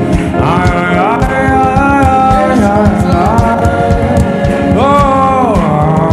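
Gospel worship music: singing voices hold and slide between long notes over a steady rhythmic accompaniment.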